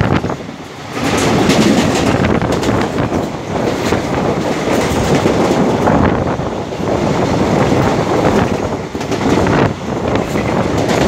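Passenger train running at speed, heard from its window: a steady rush of wheel and rail noise mixed with wind. The noise dips briefly about half a second in, then holds steady.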